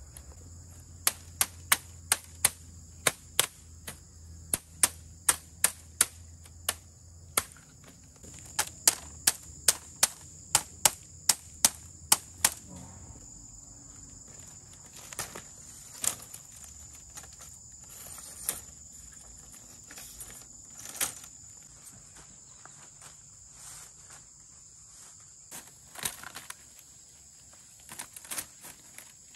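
Sharp hand-tool strikes on building material, about two a second for the first twelve seconds, then only a few scattered ones. A steady high insect trill runs behind them.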